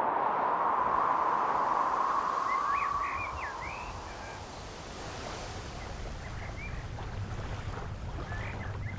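Outdoor nature soundscape: a rushing noise that fades away three or four seconds in, with short bird chirps about two and a half seconds in and again near the end, over a low rumble that builds in the second half.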